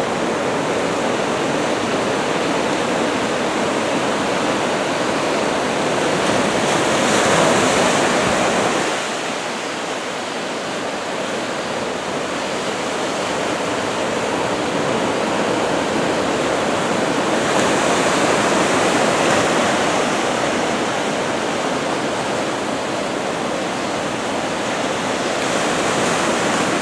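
Ocean surf: head- to shoulder-high typhoon swell breaking in a steady wash, swelling louder about seven seconds in, again around eighteen seconds, and near the end.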